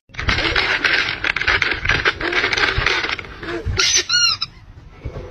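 A plastic snack packet crinkling and rustling in a hand for about three seconds. About four seconds in there are a few short, high squeaky notes.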